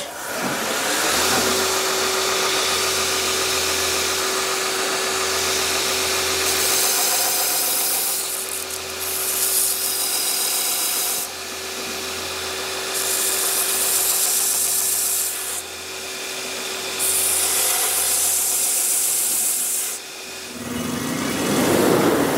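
Belt grinder running with a steady hum while a steel knife blade is pressed to the belt in about five passes, each a loud grinding hiss lasting one to two seconds. The grinding is jointing the edge flat and taking out a worn-in recurve. Near the end the sound changes to a different spinning wheel.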